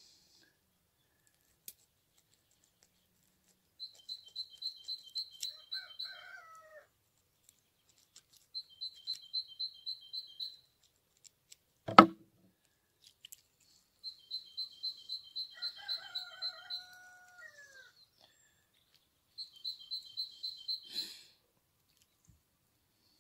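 A small songbird singing a rapid, evenly pulsed high trill about two seconds long, four times, with a few lower gliding calls in between. A single sharp knock about halfway through is the loudest sound.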